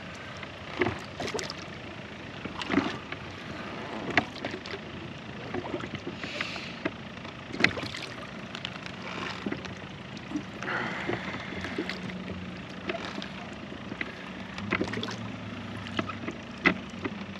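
Oars of an inflatable pontoon boat being rowed: a short knock and splash with each stroke, repeating every second or two.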